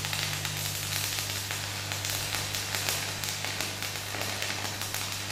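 Manual metal arc (stick) welding of a steel lap joint: the arc crackles and sizzles steadily with a dense patter of fine pops, over a steady low hum.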